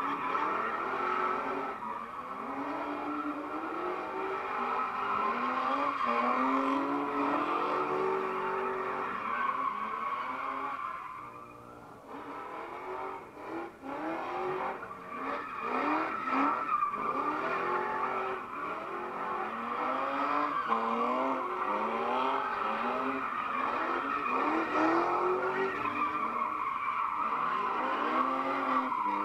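Cars swinging donuts on asphalt: engines rev up and down over and over as the tyres screech and smoke without a break. The noise drops away briefly about halfway through, then comes back.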